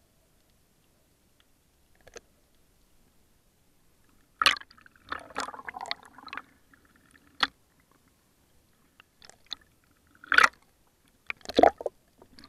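Muffled water sounds heard through an underwater camera housing: short sloshing and bubbling bursts, mostly near the middle and toward the end, with quiet gaps between.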